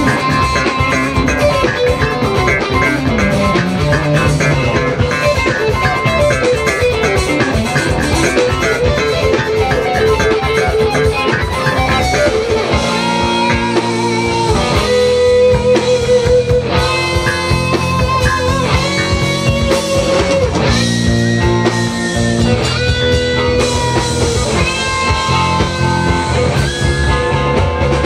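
A live rock band playing electric guitars and drums. Over the first several seconds a guitar line sweeps down in pitch and back up. From about halfway the band plays held chords that change roughly every second.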